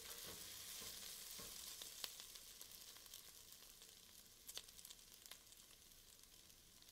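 Chopped onions sizzling faintly in oil in a stainless steel pot, the sizzle growing fainter, with a few light clicks as a wooden spoon stirs them. The onions are soft and just beginning to caramelize.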